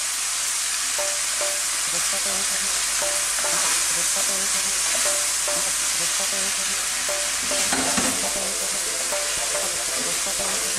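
Prawns and vegetables sizzling steadily in a hot pan while a wooden spatula stirs and tosses them, with small scrapes and knocks against the pan.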